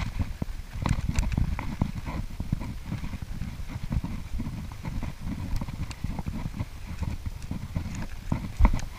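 Small waves slapping against a plastic kayak hull: irregular low, hollow knocks, several a second.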